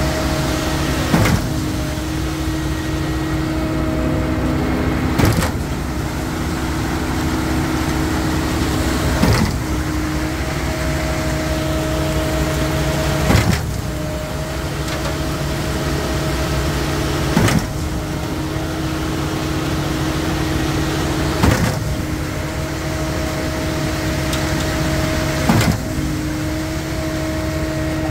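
Truck-mounted concrete boom pump pumping concrete: its engine and hydraulics run steadily, with a sharp clunk about every four seconds, seven in all, as the pump changes stroke.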